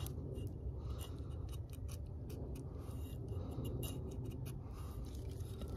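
Factory edge of a Nedfoss 15-inch camp hatchet shaving thin curls down a split stick to make a feather stick, a quick, irregular run of short, crisp scraping strokes over a low steady rumble.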